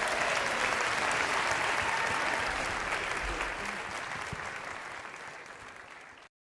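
Audience applauding, fading away over the last couple of seconds and then cutting off abruptly near the end.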